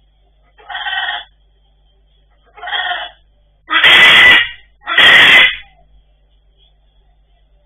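Blue-and-gold macaws calling: two short, quieter calls, then two loud squawks about a second apart.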